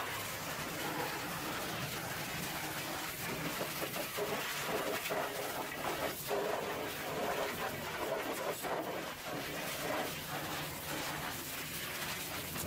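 High-pressure water jet from a pressure-washer lance blasting mud off a dump truck's tyre and steel wheel rim. A steady hiss of spray whose tone shifts as the jet moves over the surface.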